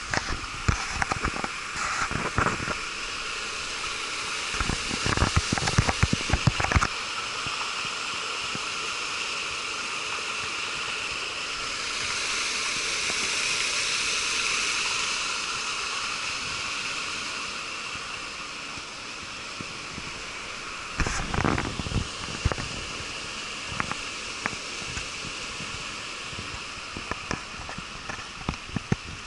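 Water pouring from an inlet into a concrete fish-pond basin, a steady rushing splash that swells a little about halfway through. Irregular low thumps and crackles come in bursts over the first seven seconds and again about twenty-one seconds in.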